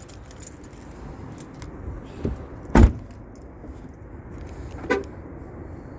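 Car keys jangling, with a heavy thump about three seconds in as a part of the car is shut, and a lighter knock near five seconds.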